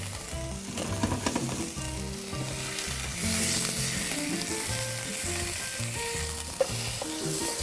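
Beef osso buco shanks searing in hot oil in a skillet: a steady sizzle that grows louder about three seconds in.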